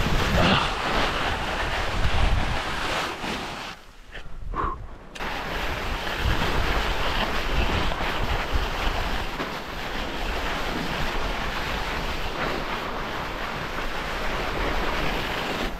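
Snow hissing and scraping under a climber glissading seated down a steep snow couloir, with wind buffeting the microphone. The rush drops away for about a second, around four seconds in, then carries on steadily.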